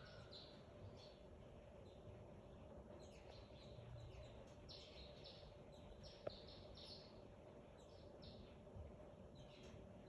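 Birds chirping faintly: clusters of quick, high, downward-sliding notes, with a single sharp click a little past the middle.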